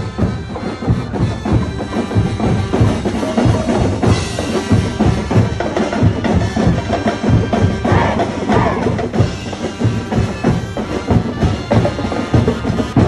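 Music with prominent drums and percussion keeping a steady, busy beat.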